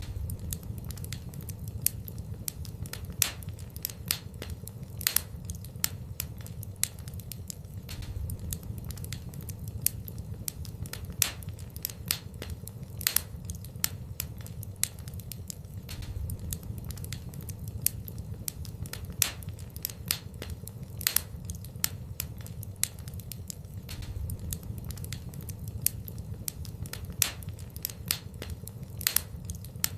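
Wood fire burning in a fireplace: irregular sharp crackles and pops, several a second, with louder pops every second or two over a steady low rumble.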